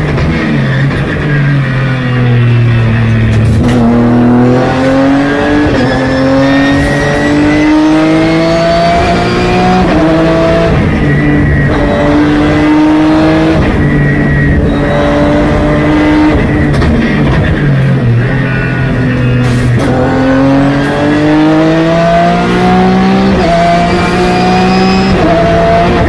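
In-car sound of a Porsche GT3 Cup's flat-six racing engine driven hard. The revs drop under braking, then climb sharply through a run of quick upshifts, each a brief dip in pitch. This happens twice, the revs falling off in between.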